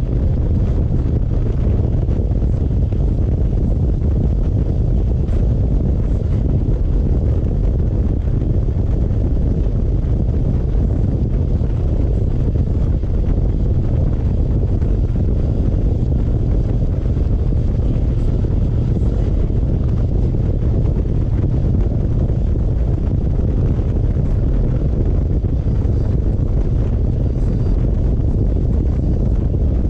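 Steady, loud wind rumble on the camera microphone of a Harley-Davidson Road Glide cruising at steady road speed, mixed with the motorcycle's running noise.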